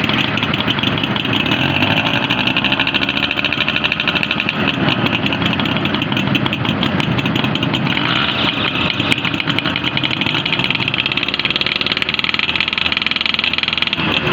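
Yamaha 100 cc two-stroke single-cylinder motorcycle engine running, its pitch rising and falling a few times as the throttle is opened and eased.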